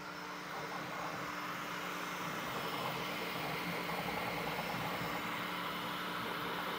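Bambu Lab P1S 3D printer mid-print: a steady whir of its cooling fans and moving print head, getting a little louder about a second in as the front glass door is opened.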